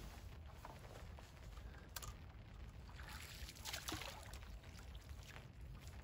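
Quiet water sounds as a lamprey dead bait rig is reeled in and lifted out of the lake: a soft splash and drip around four seconds in, over a low steady rumble, with a faint click about two seconds in.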